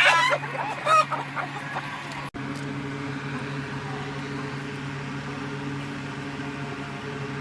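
Chickens clucking and calling for about the first second. After a sudden cut, a steady low hum takes over with no more calls.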